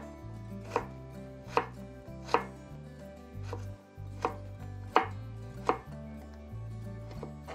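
Kitchen knife cutting carrot into thin julienne strips on a cutting board: about eight single, unhurried chops, roughly one every three-quarters of a second, with a short pause near the middle.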